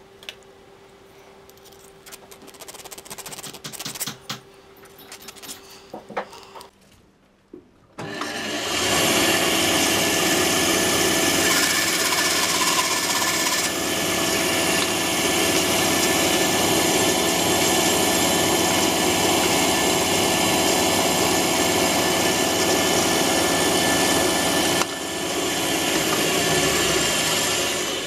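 Light clicks and knocks of small metal and wooden parts being handled. Then, about eight seconds in, a bandsaw starts suddenly and runs loud and steady while cutting a small wooden block. It drops in level about 25 seconds in and winds down near the end.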